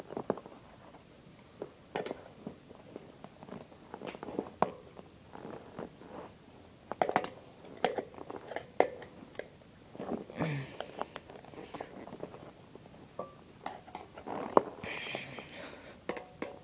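Screwdrivers prying a solid rubber tire into a bicycle rim: irregular clicks and knocks of the metal tools against the rim, with short stretches of rubber rubbing and scraping as the tire is worked in.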